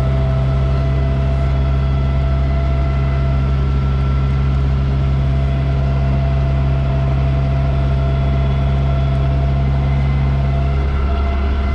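Amphicar amphibious car's four-cylinder engine running steadily as it motors through the water, a loud, even low drone; one of its low hum tones drops away near the end.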